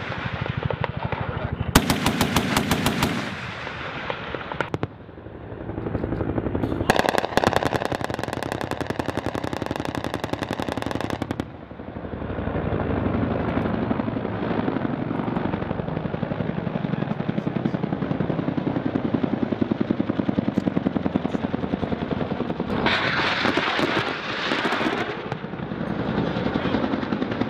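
Rapid automatic gunfire in bursts on a firing range: a short burst about two seconds in and a longer one of about four seconds around the middle, followed by a steady rapid pulsing that runs on to the end.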